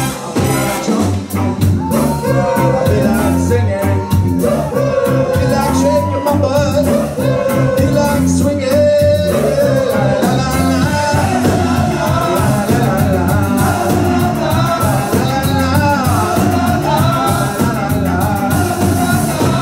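Ska band playing live. A horn section of trombone, trumpet and saxophone carries the melody over guitar, bass, keyboard and drums. About halfway through, several band members sing together over the band.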